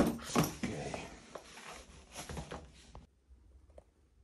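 A sharp knock, then several lighter knocks and rustles from a person handling a wooden stool and climbing onto a bed. The sounds stop about three seconds in.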